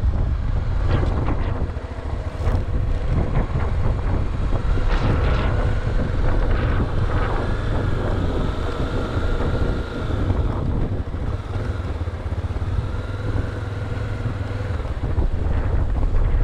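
Heavy wind noise on the microphone while riding a Honda XRE300 motorcycle, with its single-cylinder engine running steadily underneath.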